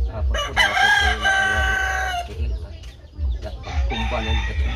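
Rooster crowing: one long crow of about two seconds, then a shorter call near the end.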